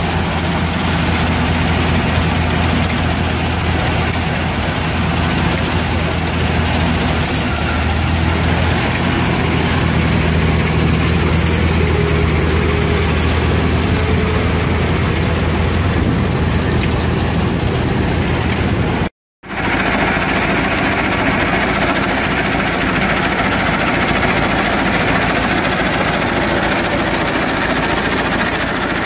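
Ford 861 Powermaster tractor's four-cylinder engine running steadily, with a low hum. After a sudden break about two thirds of the way through, a different vintage tractor engine is heard running, noisier and with less of the low hum.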